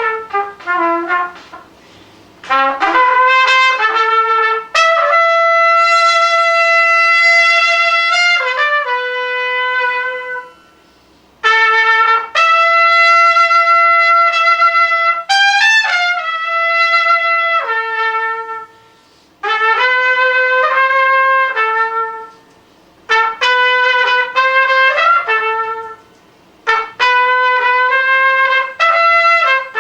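Unaccompanied trumpet solo: phrases of long held notes and quicker runs, separated by brief pauses for breath.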